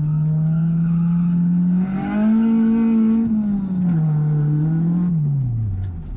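Race car engine running hard, its pitch steady, rising about two seconds in, easing back, then falling off sharply near the end as the throttle is lifted.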